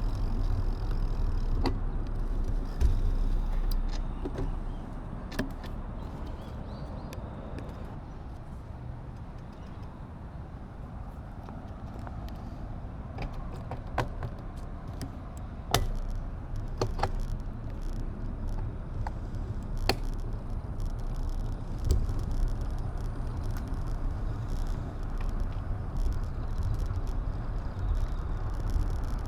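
Wind and road rumble on an action camera's microphone during a ride, with scattered sharp clicks and knocks from bumps.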